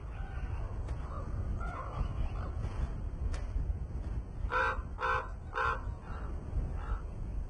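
A crow-like bird caws harshly three times in quick succession about four and a half seconds in, after a few fainter calls. A steady low rumble runs underneath.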